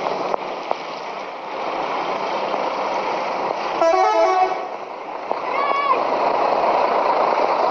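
Bus telolet horn: a multi-tone horn plays a quick run of stepping notes lasting under a second, about four seconds in, over steady street noise.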